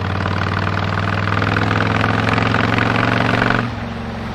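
Honda VTX 1300 V-twin motorcycle engine pulling under throttle, its pitch climbing gently, then easing off suddenly about three and a half seconds in as the throttle is rolled back or a gear is changed.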